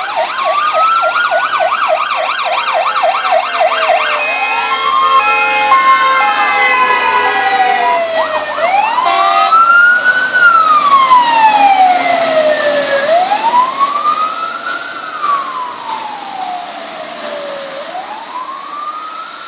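Fire engine sirens on an emergency run. A fast yelp switches about four seconds in to a slow rising-and-falling wail, with steady blaring tones for a few seconds in the middle. Loudest as the truck passes, with the hiss of tyres on the wet road, then fading while the wail continues.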